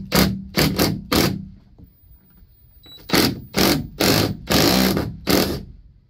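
Cordless DeWalt drill/driver tightening a bolt, its motor running in short bursts: four quick pulls of the trigger in the first second and a half, then a series of longer runs from about three seconds in.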